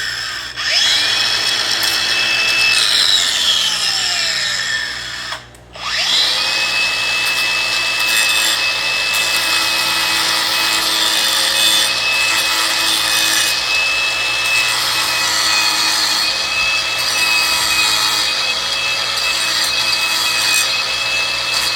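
Electric grinder grinding the head off a riveted pin on a motorcycle drive chain: it spins up with a high whine, winds down and stops about five seconds in, then starts again and runs steadily under load.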